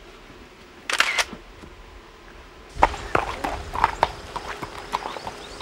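A camera shutter clicks once about a second in. Then, from nearly three seconds in, a horse's hooves clip-clop at a walk in an even run of knocks.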